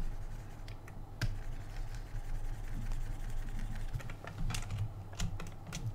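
Light, scattered clicks and taps from working a computer's input devices while sculpting, over a low steady hum.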